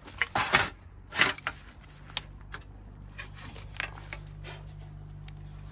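A few sharp knocks and clinks as a round metal tray with a knife and a wooden spatula on it is picked up and handled, the loudest in the first second and a half, then lighter scattered clicks.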